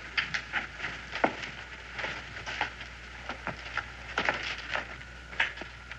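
A child's light footsteps and the rustle of clothing, heard as scattered soft taps at irregular intervals over a steady faint hum.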